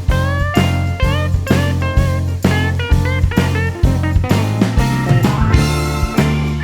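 Background music: a guitar-led blues-rock track with bending lead guitar notes over a steady drum beat and bass.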